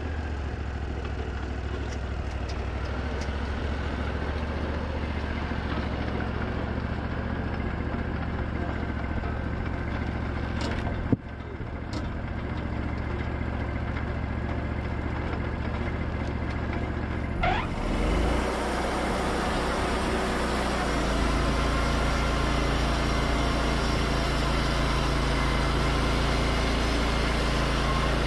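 Wood-Mizer LT40 portable sawmill's engine running steadily at idle, with one sharp click about eleven seconds in. After about seventeen seconds it speeds up with a brief rising whine and runs louder and steadier as the band saw cuts through a white pine log.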